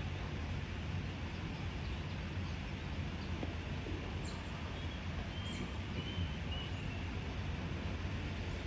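Steady outdoor background noise with a low hum, with a few short, faint bird chirps in the middle.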